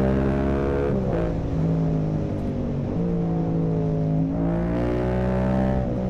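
Yamaha R7's parallel-twin engine running through an Akrapovic full carbon exhaust under riding load. The engine note drops about a second in, holds, climbs again from about four and a half seconds, and falls off near the end as the throttle is worked.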